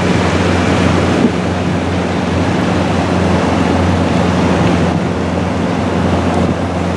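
Outboard motor of a Zodiac inflatable boat running at a steady low hum, under wind and the rush of water.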